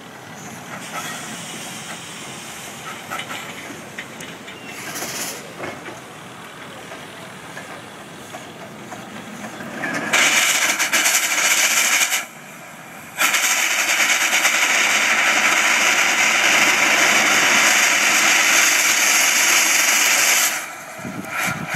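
1925 Erie Model B steam shovel at work: softer machinery noise for about ten seconds, then a loud hiss of escaping steam that breaks off for about a second and carries on until just before the end.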